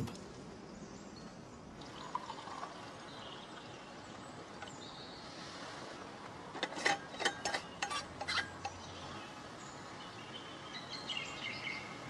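Quiet outdoor ambience with faint bird chirps, and a brief run of sharp clicks about two-thirds of the way through.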